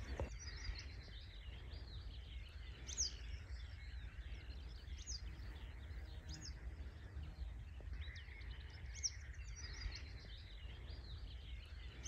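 Small songbirds twittering and calling, with a sharp high chirp every second or two over continuous chatter. A steady low rumble runs underneath.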